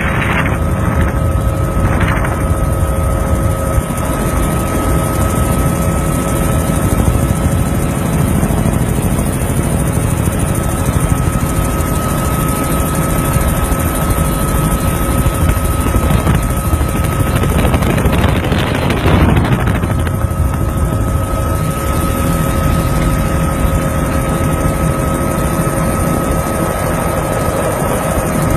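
Steady helicopter engine and rotor noise heard from on board, with faint steady tones under it. A brief louder rush comes about two-thirds of the way through.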